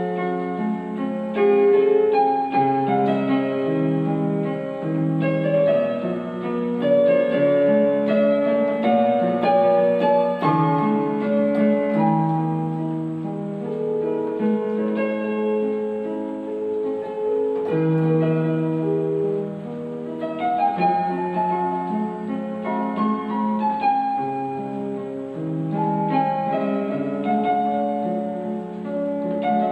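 Piano voice on an electronic keyboard, played with both hands: a slow melody over flowing lower chords and broken-chord figures.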